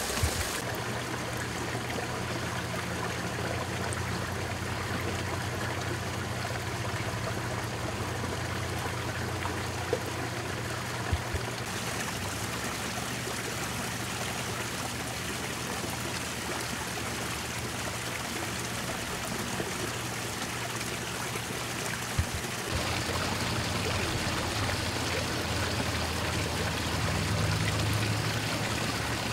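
Water trickling and splashing steadily into a garden pond, with a low steady hum beneath and a few faint clicks.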